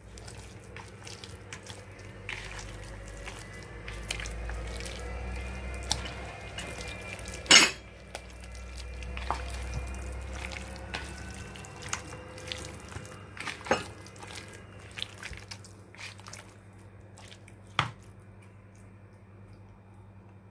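A hand kneads and turns raw beef chunks in a wet yogurt-and-spice marinade in a bowl: sticky, wet sounds of meat being squeezed and moved, with many small clicks. One sharper knock comes about seven and a half seconds in, and two weaker ones follow later.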